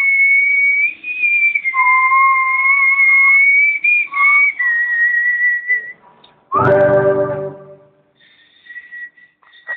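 A high, held whistling tone that steps between two pitches an octave apart and bends slightly. About six and a half seconds in, an electric guitar chord is struck and rings out. Faint high tones return near the end.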